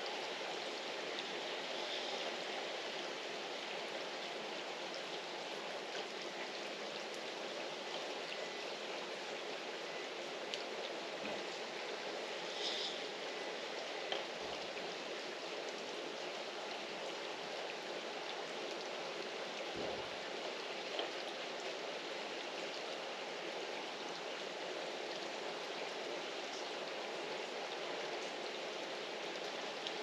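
Steady rain falling on tiled roofs and garden foliage, an even hiss with a few louder drips and ticks here and there.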